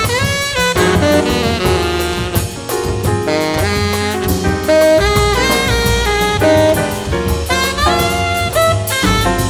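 Jazz music: a saxophone playing quick runs of notes that climb and fall, over a drum kit.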